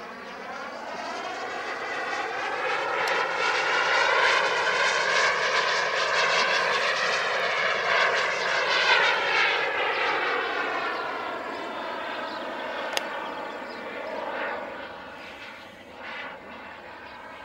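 Gas turbine of a radio-controlled Vampire model jet whining and rushing as the plane flies past. It grows louder over the first few seconds, stays loud for a while, then fades as it moves away. A single sharp click comes about thirteen seconds in.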